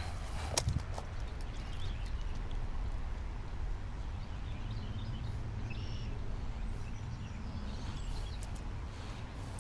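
Steady low outdoor rumble with a couple of sharp clicks about half a second in and faint high chirps in the middle.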